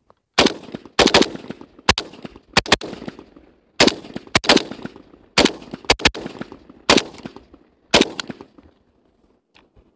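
AK-47 assault rifle firing about fourteen shots at an uneven pace, single shots mixed with quick doubles, each crack trailing off in an echo. The shooting stops about eight seconds in.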